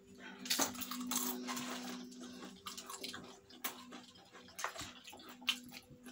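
Plastic snack bags rustling and crinkling, with short crackles as chips are handled and eaten. The longest rustle comes in the first couple of seconds, over a steady low hum.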